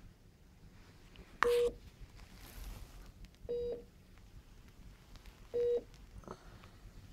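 Bedside patient monitor beeping: a short steady mid-pitched tone repeating about every two seconds, three beeps in all, with faint rustling and a click between them.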